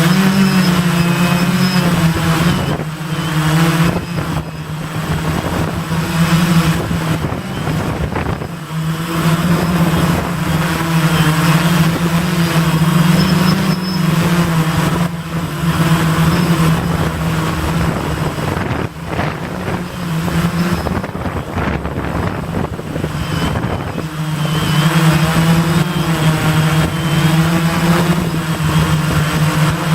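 Gaui 500X quadcopter's electric motors and propellers humming in flight, the pitch rising and falling as it manoeuvres and fading for a while as it moves farther off. Gusts of wind buffet the microphone throughout.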